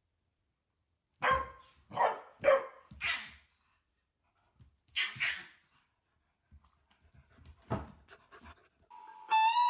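A dog barking: four sharp barks in quick succession, two more a couple of seconds later, and one more near the end.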